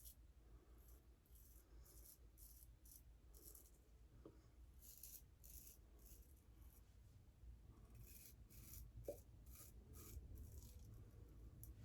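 A 6/8 Damascus straight razor shaving lathered stubble: faint, short scraping strokes coming in quick runs with brief pauses between them.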